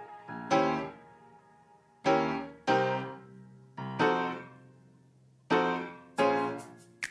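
Background music: piano chords, each struck and left to fade, one every second or so with a couple landing close together.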